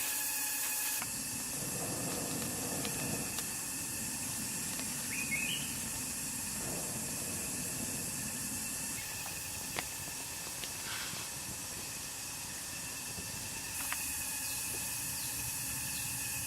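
Steady hissing noise with a few faint clicks and a brief chirp about five seconds in.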